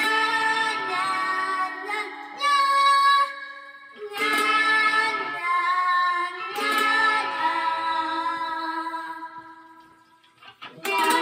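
Young children singing a nursery song in sung phrases with short breaks, accompanied by ukulele and cajon. The sound fades almost away about ten seconds in, and the next phrase comes in just after.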